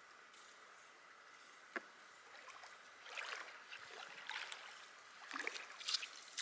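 Shallow sea water splashing and sloshing in short bursts, several times in the second half and growing stronger, over a faint steady hiss.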